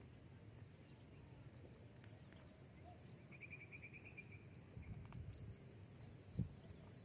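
Faint outdoor ambience with a low rumble. About halfway through there is a short, rapid, high trill of about ten notes, and near the end a single dull thump.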